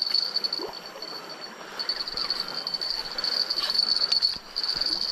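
Steady high-pitched insect buzzing that pulses slightly and drops out briefly twice, over the even rush of a fast-flowing river, with a few faint clicks.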